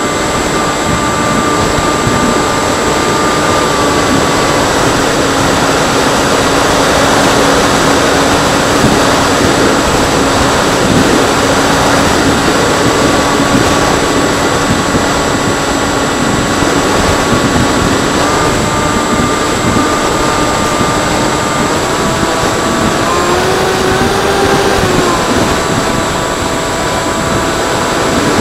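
Freewing Seagull electric model airplane in flight: a steady motor hum over heavy rushing wind noise. The pitch steps up and down a few times as the throttle changes, with a short rise and fall near the end.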